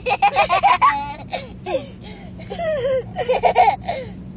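Young boys laughing and giggling in high-pitched bursts of quick repeated ha-ha pulses, with one run in the first second and another cluster about three seconds in.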